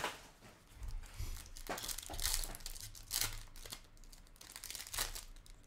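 Foil wrappers of Bowman University Chrome basketball card packs crinkling and tearing as the packs are handled and ripped open, in a handful of short rustles.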